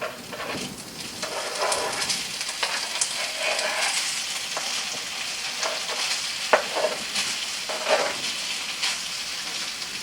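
Food sizzling in a frying pan, with a spatula scraping and clicking against the pan every second or so.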